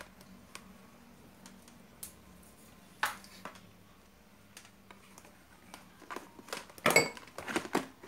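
Light clicks and taps of small plastic parts being handled on a workbench: a power adapter's DC plug is set down and a digital multimeter with its test leads is picked up. A sharp click about three seconds in, and the loudest burst of clatter about seven seconds in.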